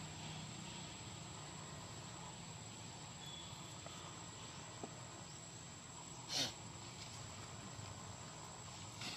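Quiet outdoor background with a steady, faint, high insect drone, broken by one brief sharp noise a little past the middle and a softer one near the end.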